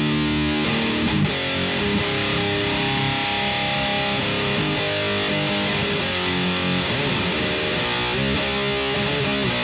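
Electric guitar played through a thiSHEAvyearth Grim distortion pedal. A held distorted chord changes about a second in, and a riff of sustained notes follows.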